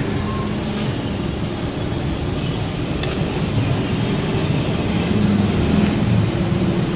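Steady low hum and rushing background noise, traffic-like, with faint clicks about one and three seconds in.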